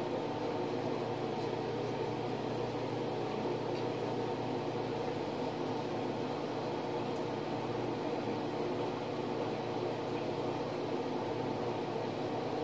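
Steady mechanical hum with several held tones over a faint hiss, unchanging throughout.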